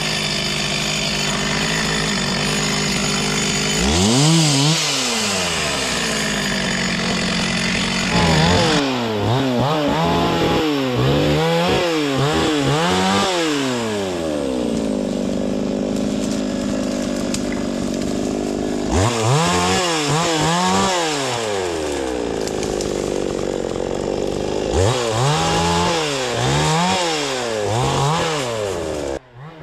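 Two-stroke chainsaw running, its engine revved up and down in quick rising-and-falling sweeps several times, with steadier stretches in between.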